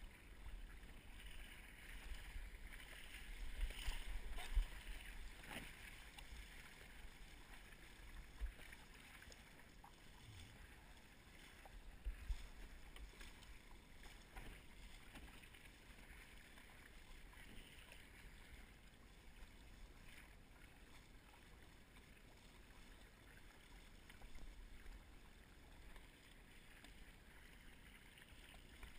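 Faint wind buffeting the microphone while a windsurf board under sail cuts through choppy water with a steady hiss of water. The gusts are strongest about four seconds in and again about twelve seconds in.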